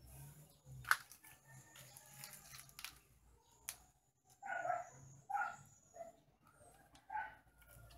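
A dog barking four short times in the second half, with a sharp click about a second in.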